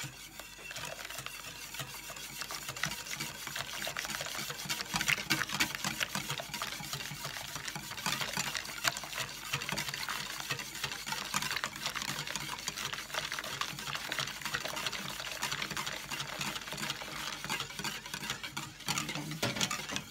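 Wire whisk beating egg custard in a stainless steel bowl, its wires clicking and scraping quickly and continuously against the metal, while hot milk is poured in slowly to temper the eggs.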